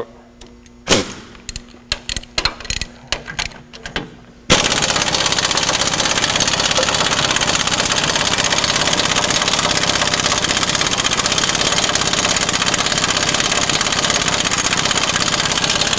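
A few metal clinks and knocks as the socket goes on. Then, about four and a half seconds in, a pneumatic impact wrench with a 27 mm socket starts hammering loudly and without a break on a large, stubborn nut on the forklift's frame.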